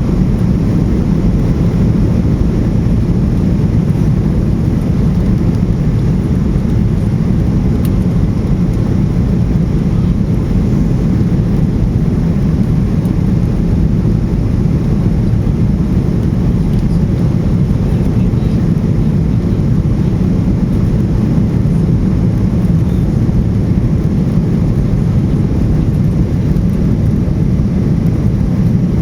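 Steady cabin noise inside a Boeing 737-800 airliner: an even, low rumble of the engines and airflow that does not change.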